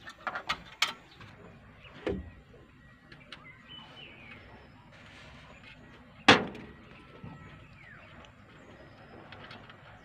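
Scattered clicks and knocks from hands and a tool working on a wiring connector in a backhoe's engine bay. There are a few quick clicks in the first second, a duller knock about two seconds in, and a single loud, sharp knock about six seconds in.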